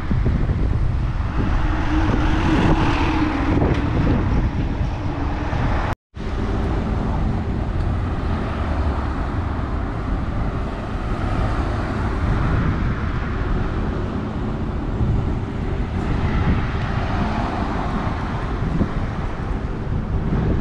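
Outdoor road traffic running steadily, with wind rumbling on the microphone. The sound cuts out completely for a moment about six seconds in.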